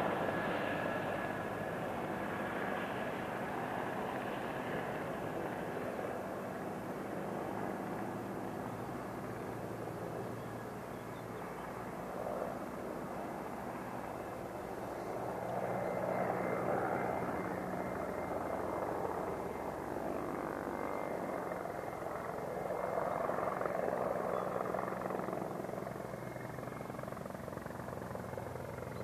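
Mil Mi-24P attack helicopter in flight, its rotors and twin turboshaft engines making a steady drone. The drone eases off after the start and swells twice, about halfway through and again near the end.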